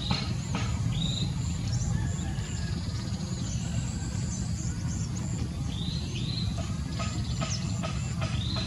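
Outdoor ambience: a steady low rumble, with short high bird chirps every few seconds, a brief fast insect-like trill about three seconds in, and a few faint sharp clicks near the end.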